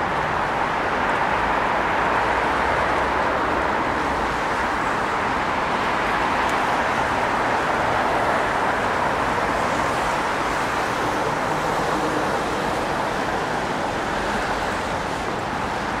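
Steady traffic noise from cars and buses on a busy city road.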